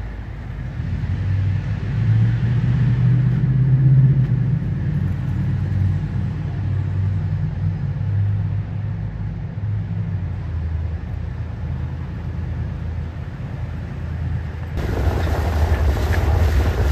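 A low engine rumble with a steady hum that shifts in pitch a few times. About fifteen seconds in it cuts sharply to wind buffeting the microphone over open water.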